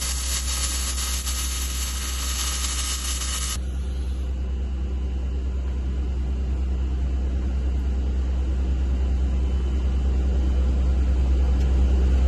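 Electric arc welding: the arc hisses and crackles for about the first three and a half seconds, then cuts off abruptly, leaving the welder's steady electrical hum.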